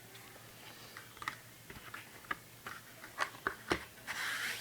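Paper inserts and a plastic Blu-ray case being handled and packed back together: a handful of light clicks and taps, then a short papery rustle near the end.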